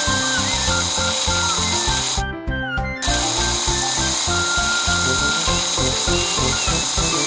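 Cartoon power-tool sound effect, a steady whirring hiss like a drill or sander, over background music with an even beat. The tool sound stops briefly a little over two seconds in, then resumes.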